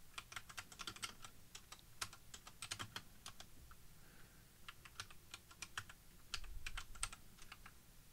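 Computer keyboard typing: a faint run of irregular key clicks, with a short pause a little past the middle.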